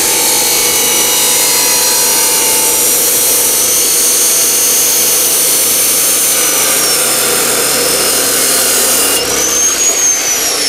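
Bosch GCO 2000 abrasive cut-off saw cutting through metal tubing: a loud, steady grinding with a high motor whine that slowly sinks as the disc bears down under load. Near the end the cut finishes. The whine rises briefly as the load comes off and then falls as the motor runs down.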